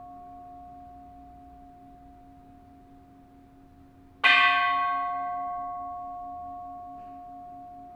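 A Buddhist temple bell ringing. The ring of an earlier strike dies away, then the bell is struck once about four seconds in and rings on, fading slowly with a pulsing low hum beneath.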